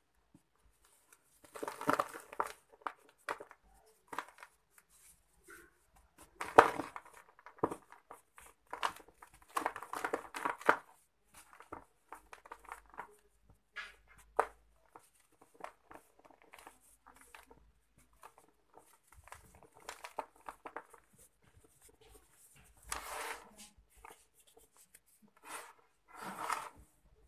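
Soft sand-cement lumps crushed and crumbled by hand: gritty crunching in several bursts with short pauses between, the loudest about six and a half seconds in.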